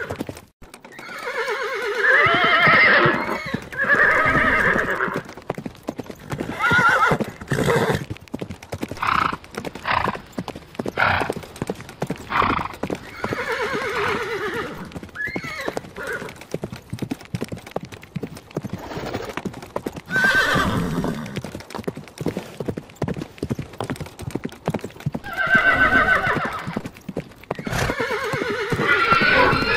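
Horses whinnying several times, long quavering calls, with hooves clip-clopping in between.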